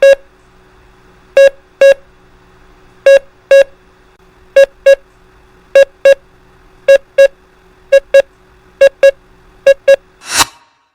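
Morse code (CW) tone sending the prosign EE as pairs of short dits, dit-dit, about nine times over, the pairs coming faster toward the end, over faint hiss and a steady hum. It ends with one short burst of noise.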